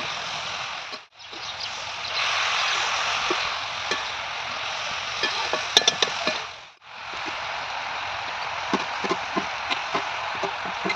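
Vegetables sizzling as they fry in a pan, with short knocks of utensils against the pan or board, more of them in the second half. The sizzle breaks off briefly twice.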